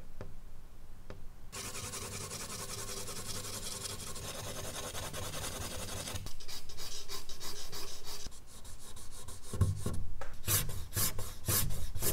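Charcoal scratching on medium-surface sketch paper. Dense, steady hatching strokes begin about a second and a half in, give way to firmer, more separate strokes, and end in a run of about six quick, sharp strokes.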